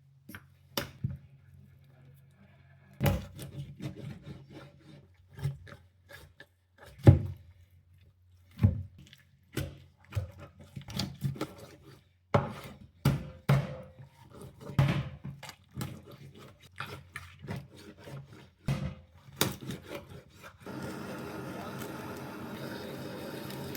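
Kitchen work on a wooden surface: irregular sharp knocks and scraping, as from a knife and utensils on a wooden cutting board. Near the end a steady hiss starts.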